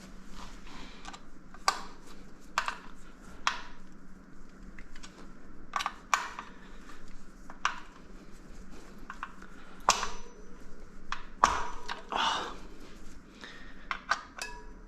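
Scattered metallic clicks, clinks and knocks of hand tools and bike parts being handled, a dozen or so sharp taps at uneven intervals, the loudest about ten and eleven and a half seconds in, over a faint steady hum.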